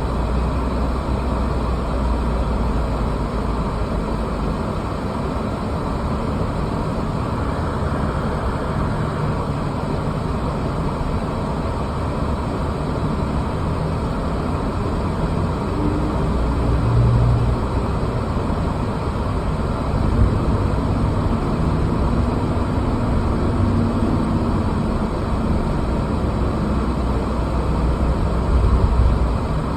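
Steady engine and road noise from inside a moving vehicle's cabin, with a constant low rumble.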